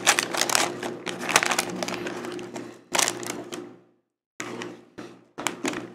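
Plastic and paper snack packaging crinkling and rustling as it is handled, with sharp irregular crackles. The sound stops completely about four seconds in, then comes back in a few short bursts.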